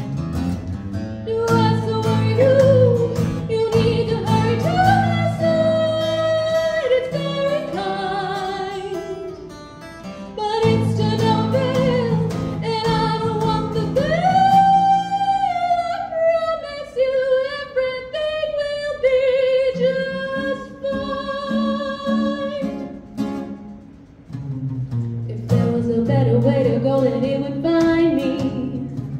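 A woman singing with live acoustic guitar accompaniment, holding long wavering notes. Past the middle the guitar chords drop away for several seconds while her voice carries on nearly alone, and the chords come back near the end.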